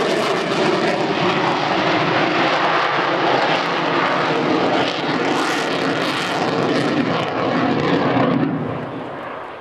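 Twin Klimov RD-33 turbofan engines of a MiG-29 fighter at high power as it climbs away, a loud, steady jet rush. The sound fades near the end as the engine noise drops away ahead of a tail slide.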